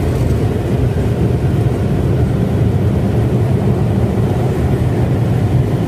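Automatic car wash air-dryer blowers running, a loud, steady, low rushing noise heard from inside the car.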